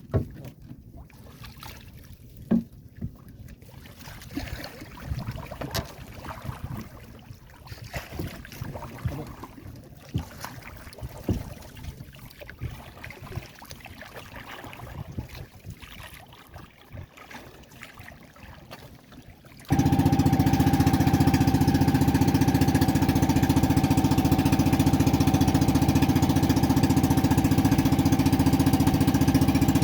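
Water sounds with scattered knocks, then, about two-thirds of the way in, a boat engine cuts in abruptly and runs steadily at full loudness.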